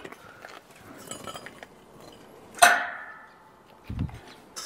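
Steel square-tube frame being handled: one sharp metallic clank that rings briefly about two and a half seconds in, then a dull low thud near the end.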